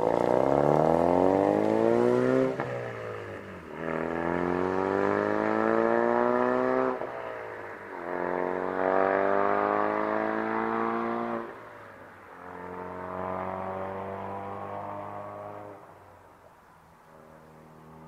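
Ford Focus RS MK3's 2.3-litre turbocharged four-cylinder, breathing through a modified, loud custom exhaust, accelerating hard away through several gears. The pitch climbs in each pull and drops at each upshift, and the sound fades as the car draws away.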